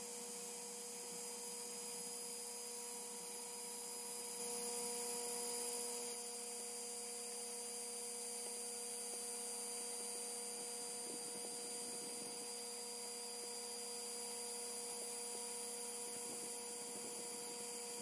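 XTOOL D1 Pro 40W diode laser running while it cuts plywood: a steady, fairly quiet hum with a few constant tones over a faint hiss.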